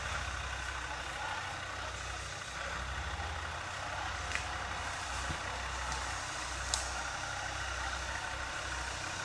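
Land Rover Discovery TD5's five-cylinder turbodiesel running at low revs as the truck crawls slowly forward, a steady low drone. A few short sharp clicks come in the middle.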